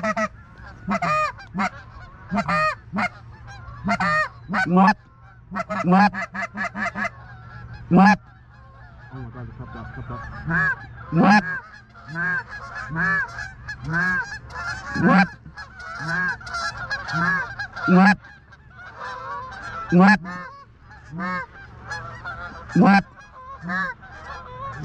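Canada geese honking: loud single honks every two to three seconds over fainter, overlapping honking and clucking.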